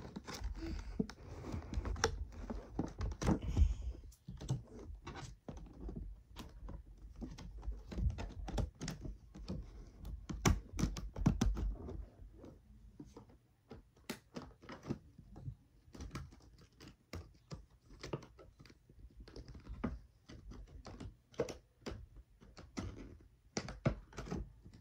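Toy packaging being handled and worked at by hand in a struggle to get it open: a run of irregular clicks, taps and knocks, busier and louder for the first half, sparser later.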